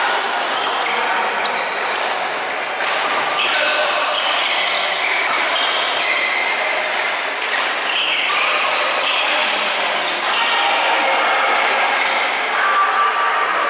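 Badminton play on several courts: sharp racket strikes on the shuttlecock, many in quick succession, mixed with short squeaks of shoes on the court mats.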